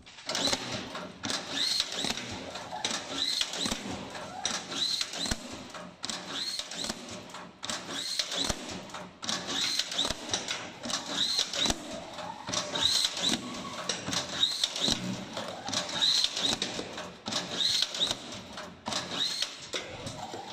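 Easy-Strap automatic strapping machine cycling over and over, about a dozen times, roughly one strapping cycle every second and a half. Each cycle feeds the strap around the arch, pulls it tight and cuts it, with a short high squeal in every cycle.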